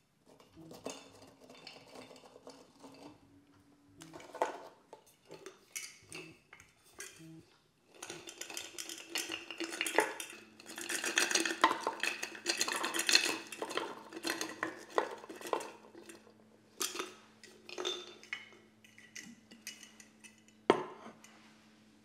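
Oreo cookies clinking against a glass jar and clattering onto a wooden chopping board: scattered knocks as they are taken out by hand, then a dense run of rattling from about eight to fourteen seconds in as the jar is tipped and the cookies slide out, with one last sharp knock near the end.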